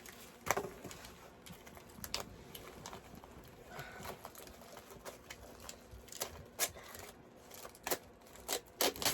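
Plastic packaging crinkling and crackling in irregular sharp clicks as a wrapped tray of dried fruit is handled and opened, with a few louder crackles near the end.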